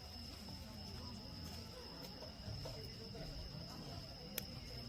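Steady high chirring of crickets, with faint voices underneath and one sharp click near the end.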